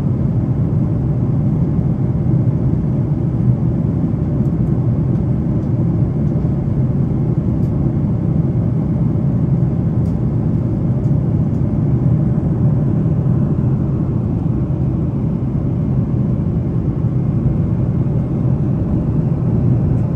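Steady low rumble of an airliner in flight, its engine and airflow noise heard from inside the cabin.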